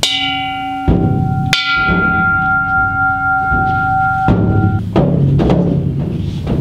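Buddhist temple bell struck twice about a second and a half apart, its clear ringing tones fading out over about three seconds. Deep drum beats repeat under and after it.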